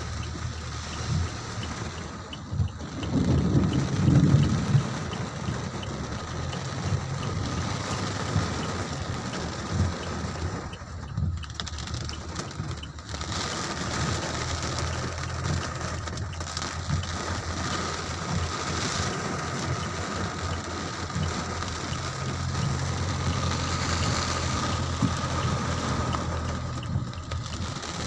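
Steady heavy rain falling, with a loud low rumble swelling about three seconds in and fading a couple of seconds later.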